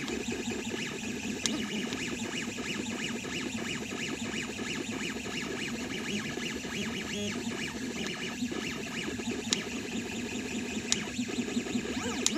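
MakerFarm Prusa i3v 3D printer running, its stepper motors whining in shifting tones, with a few sharp clicks and creaks. The owner suspects the creaking comes from the extruder, where the filament has snapped below the hobbed bolt.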